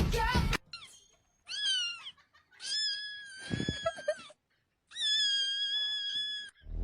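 A cat meowing: a short faint call, then three high-pitched meows, the first bending up and down in pitch and the last two long and drawn out.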